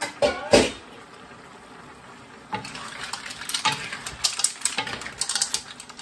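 Mussel shells clattering against each other and a nonstick wok as they are tossed with wooden spoons: a few sharp knocks at the start, a short lull, then a busy run of clatter from about halfway on.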